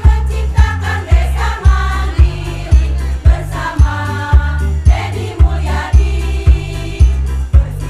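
Women's choir singing over a loud accompaniment with a heavy bass beat, about two beats a second.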